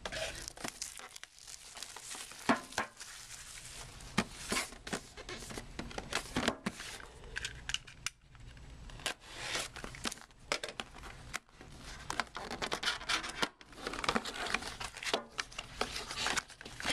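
Sealed trading-card case and its wrapping being torn open by hand: irregular ripping, crinkling and scraping of packaging.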